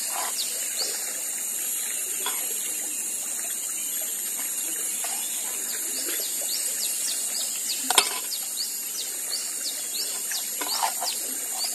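Riverside forest ambience: a steady high insect drone with a short chirp repeating over and over, over the rush of river water, and a single sharp click about eight seconds in.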